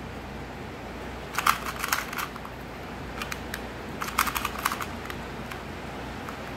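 Plastic 2x2 Rubik's cube being turned by hand, its layers clicking in two quick bursts of turns, with a few single clicks between.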